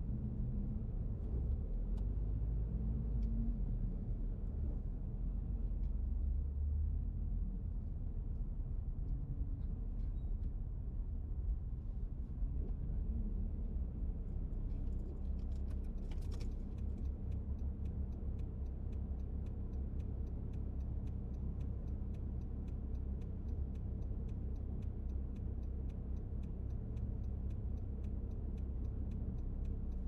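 Car driving slowly, heard from inside the cabin: a steady low rumble of engine and tyres. About halfway through, a quick, even ticking joins it.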